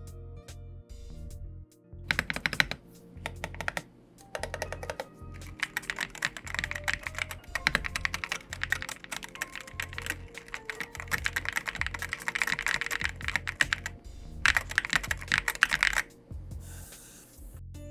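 Typing on a custom Iris split keyboard with aluminium case and plate, INVYR Holy Panda tactile switches and ceramic keycaps: bursts of rapid key clacks separated by short pauses.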